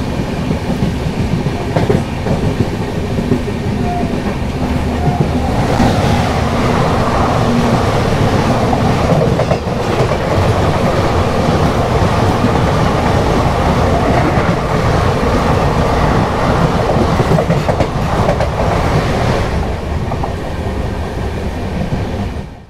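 A moving express train heard from an open coach doorway: steady loud running noise of wheels on rail. From about six seconds in until near the end, a train of ICF coaches passes close alongside in the opposite direction, adding a louder, harsher rush of its own.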